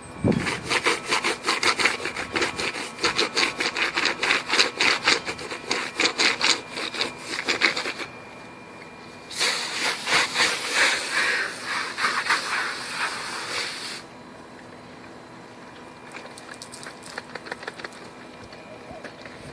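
A stiff brush scrubbing a wet computer keyboard in quick back-and-forth strokes. The scrubbing comes in two bouts with a pause of about a second and a half between them, then gives way to faint scattered ticks.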